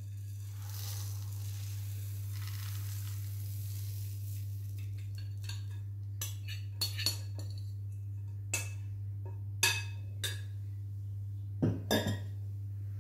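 Dry spiced rice sliding and pouring out of a glass bowl into a metal cooking pot, a soft rushing hiss over the first few seconds. It is followed by a scattered series of sharp clinks of glass and metal dishes.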